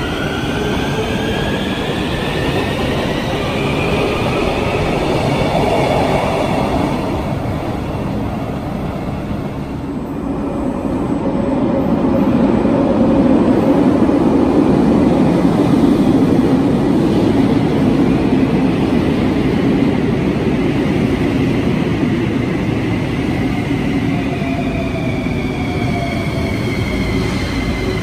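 Bucharest Metro train passing through the station. Its traction motor whine rises in pitch over the first several seconds, a louder rumble of wheels on rail fills the middle, and a whine falling in pitch comes near the end as a train slows.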